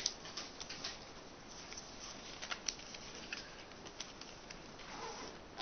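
A sheet of A4 paper rustling as it is folded and its creases pressed down, in short, scattered rustles and taps.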